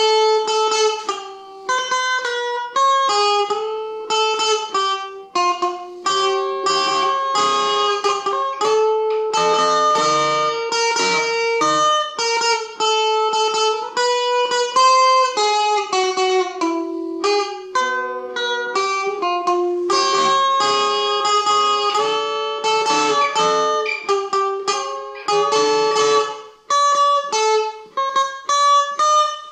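Electric guitar played clean, picking a quick single-note melody phrase after phrase: the tune of an alarm-clock ringtone worked out on guitar.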